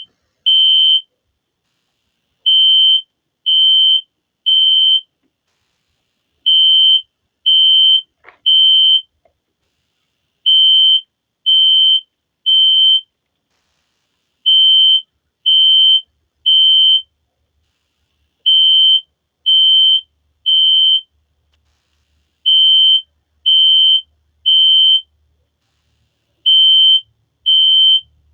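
System Sensor SpectrAlert Classic P1224MC horn/strobe sounding its horn in the temporal-three pattern: three high-pitched beeps about a second apart, then a pause of about a second and a half, repeating every four seconds. This is the standard fire evacuation signal.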